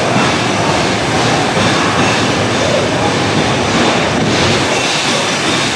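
Passenger coaches of a steam-hauled train rolling past along the platform: a steady rush of wheels on the rails, with wind buffeting the microphone.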